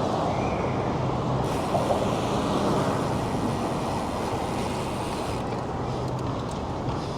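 Road traffic and wind noise heard from a moving bicycle: a steady rumble, with a higher hiss that comes in about a second and a half in and stops about four seconds later.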